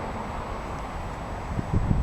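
Wind buffeting the microphone: a steady hiss with uneven low rumbling that grows stronger near the end.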